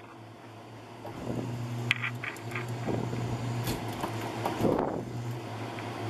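Steady low machine hum, with a few light clicks and a short rustle about four and a half seconds in.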